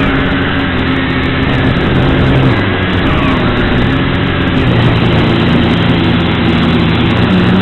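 Quadcopter motors and propellers humming steadily close up, several pitches drifting up and down as the throttle changes, over a constant rushing noise.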